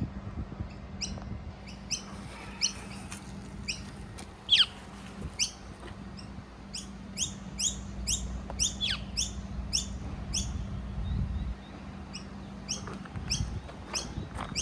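Young figbird giving short, high chirps over and over, about two to three a second, with a couple of louder falling whistles mixed in.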